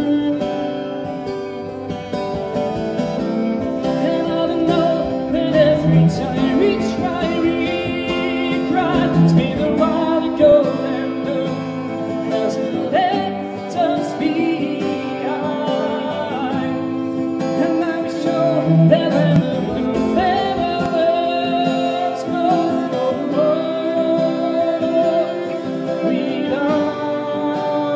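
Live acoustic music: an acoustic guitar strummed under a bowed cello, with a voice singing a wordless line over them.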